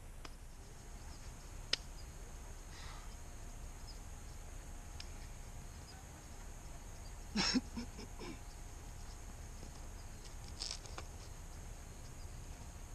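A climber's shoes and hands on the rock of a boulder: a sharp tap near the start and a few short scuffs and knocks, the loudest cluster just past the middle. Behind them is a quiet outdoor background with a steady faint high hiss.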